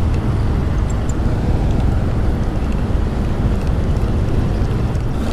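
Wind buffeting the microphone: a steady, loud low rumble with no distinct events.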